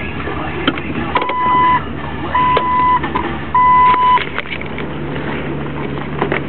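Jeep Wrangler TJ engine running at low revs on a rough dirt trail, with knocks and rattles from the body. Three identical electronic beeps sound about a second apart in the first half, each about half a second long.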